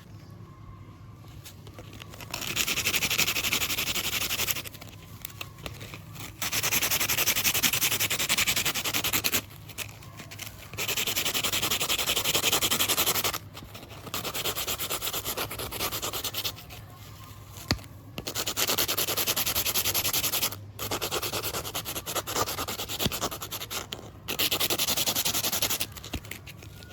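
Hand rubbing or sanding strokes on a small surface, in about seven spells of two to three seconds each with short pauses between, over a faint low hum.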